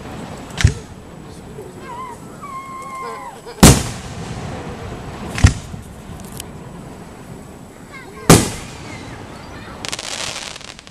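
Aerial fireworks shells bursting overhead: four sharp booms a few seconds apart, each trailing off in echo, with a short hissing crackle near the end.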